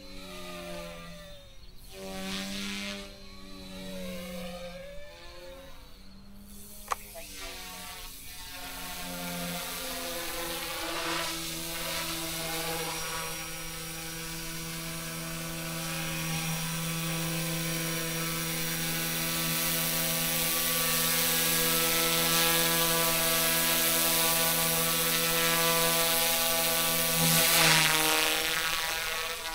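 Eachine E120S micro RC helicopter's electric motor and rotors whining. The pitch wavers and drops out for the first several seconds, then holds steady and grows louder, peaking as the helicopter passes close near the end. There is a single sharp click about seven seconds in.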